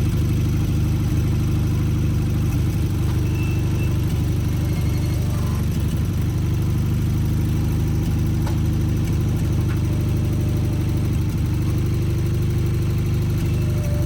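Sears Craftsman FF24 garden tractor's engine running steadily.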